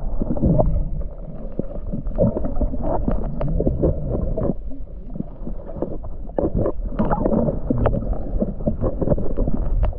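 Muffled underwater noise picked up by a submerged GoPro in its waterproof housing: a dull, low water sound with many small clicks and crackles throughout.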